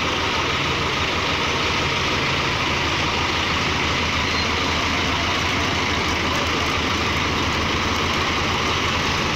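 Tractor diesel engine running steadily at low revs.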